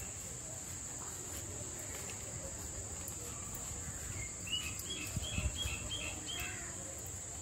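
A steady, high-pitched insect chorus, with a bird calling a quick run of short chirps about four to six and a half seconds in. A few low thumps come near the middle of the bird's calls.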